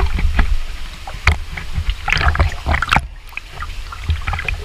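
Water sloshing and splashing as people wade waist-deep through a narrow cave passage, in irregular surges with each stride, over a steady low rumble.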